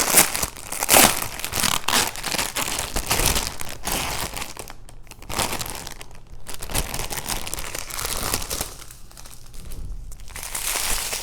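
Plastic packaging of a diamond-painting drill kit being torn open and handled, with dense, irregular crinkling that is loudest near the start and about a second in, then comes and goes more quietly.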